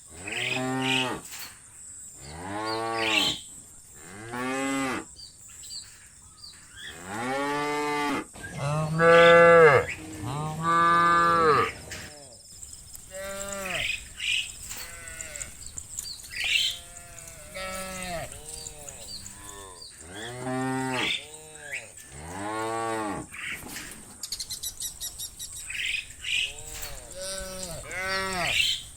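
Cows mooing, one call after another throughout, some calls overlapping, each rising and falling in pitch, the loudest about a third of the way in. Faint bird chirps in the background.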